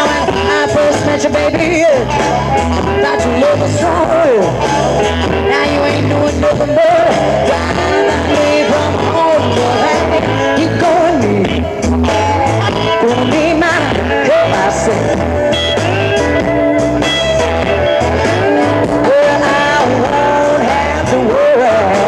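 Live blues-rock band playing through a festival PA: electric guitars over bass and drums, with notes bending up and down.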